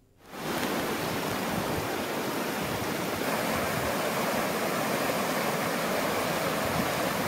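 A swollen stream in flood rushing across a road: a steady, even rushing of water that starts abruptly a moment in.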